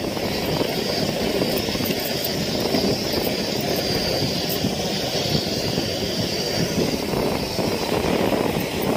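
Steady wind rushing and buffeting the microphone, a dense low rumble with a steady high hiss above it.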